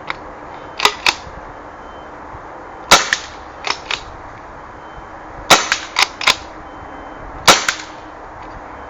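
APS RAM pump-action paintball shotgun, running on a compressed-air tank, fired three times about two to two and a half seconds apart. Before each shot the pump slide is racked back and forward in a quicker, quieter double clack.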